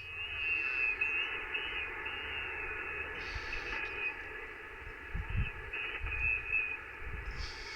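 Radio receiver hiss in the pause after the other station signs off with "over", with faint warbling whistles in the first few seconds. A few low bumps come about five to six and a half seconds in.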